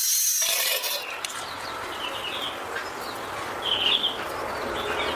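Outdoor background noise with birds chirping briefly a few times.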